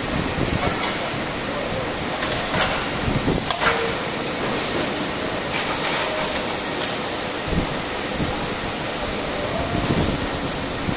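Automatic envelope packing machine and carton sealer running: a steady mechanical clatter and hum, with irregular clacks and short knocks from the moving parts, most of them in the middle stretch.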